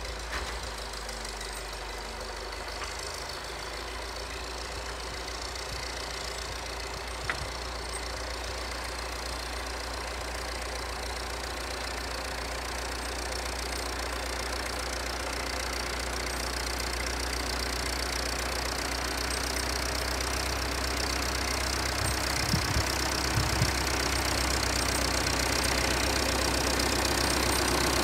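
Old Volvo loader tractor's diesel engine running as the machine drives out and across the yard, growing louder over the second half as it comes nearer.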